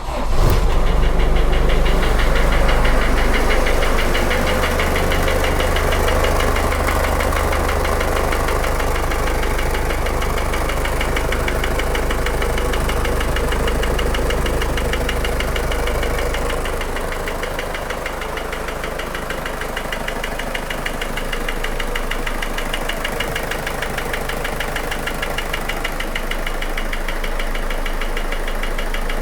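ZMZ-514 four-cylinder diesel engine starting and idling with a steady rhythmic knock. The idle settles a little lower a bit over halfway through.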